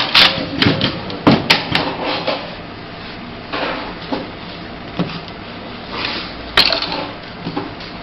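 Irregular sharp clacks and knocks from work at an industrial velcro-attaching sewing machine station, about ten spread unevenly over a low steady background. The loudest comes about two-thirds of the way through.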